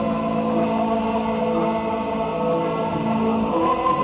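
Choral music: voices chanting in long held notes, with several parts sounding together.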